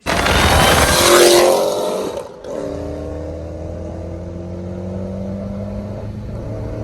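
A Ford Mustang GT's 4.6-litre three-valve V8 revving up under acceleration. After a cut about two seconds in, it runs at a steady speed with an even engine and exhaust drone.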